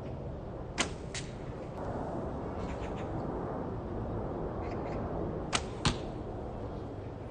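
A 68-pound Turkish-style bow shot twice: each release gives a sharp string snap followed a fraction of a second later by a second crack, the first shot about a second in and the second about five and a half seconds in. Faint small clicks of arrow handling fall between the shots.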